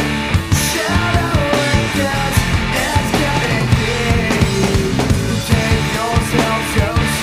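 Studio rock recording with a busy drum kit, electric guitar and bass guitar playing together at full loudness.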